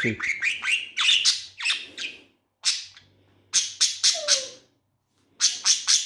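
Budgerigar chattering: quick runs of short, high chirps and squawks, broken by two brief pauses.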